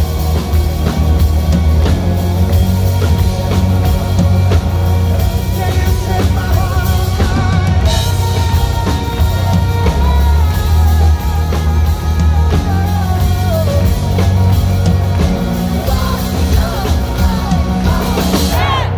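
Live rock band playing loud: electric guitar and drum kit, with a male voice singing at times.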